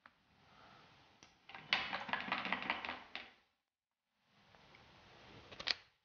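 Fine paintbrush dabbing and scratching paint onto a canvas: a dense run of quick dry ticks for about two seconds, then fainter brushing that ends in a sharp click.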